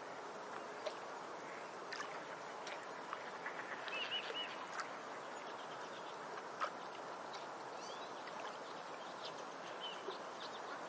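Outdoor lakeside ambience: a steady wash of background noise with scattered short bird chirps and calls, including a quick looping chirp phrase about four seconds in, and a sharp click a little past the middle.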